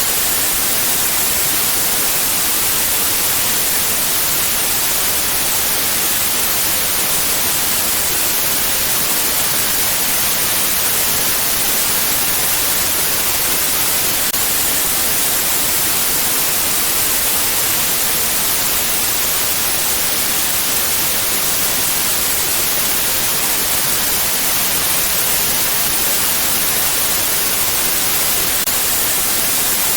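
Steady white noise: an even, unchanging hiss, brightest in the high end, with no pitch or rhythm.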